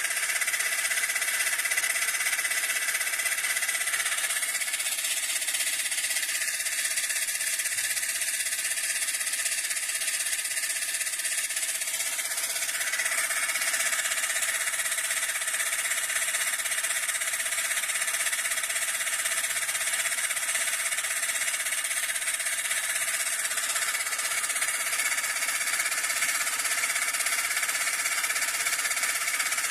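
Homemade car-tyre compressor, a refrigerator compressor driven by a car heater-fan motor, running steadily while it inflates a tyre: a constant mechanical drone with a steady whine and hiss.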